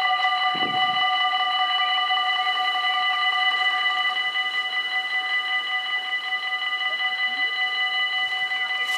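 Electronic level-crossing bells ringing, a rapid run of strokes over a steady ringing tone, while the half-barriers lower; the rapid strokes fade about four seconds in and the tone rings on.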